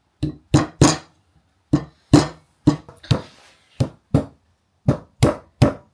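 Plucked guitar music: a run of about a dozen separate picked notes, each dying away quickly.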